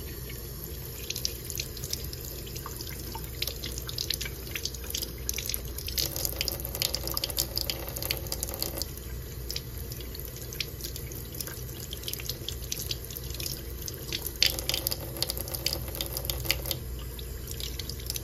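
Kitchen faucet running steadily into a sink, the stream splashing irregularly off a hand as bay leaves are rinsed under it.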